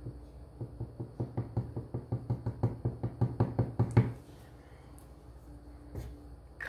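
A rapid run of light knocks, about six a second for some three seconds, ending in one louder knock. They come as a small bottle of glue is dabbed onto a wooden windmill hub.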